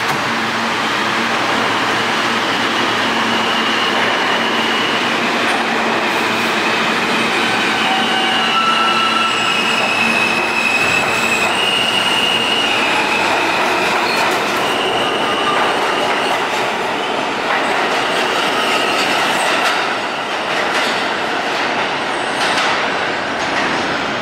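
R160 subway train pulling out of the station: a steady rumble of wheels on rail with repeated short, high-pitched wheel squeals. A low steady hum drops out about halfway through.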